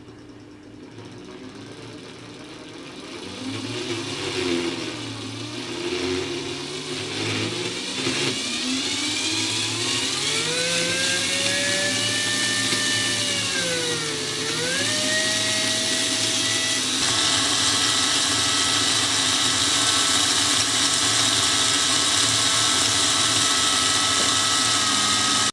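Small brushed DC motor of a cordless drill, run on its own from a bench supply, speeding up as the current is raised: an uneven low whir that climbs into a rising whine, dips briefly about two thirds of the way through, then holds a steady high whine.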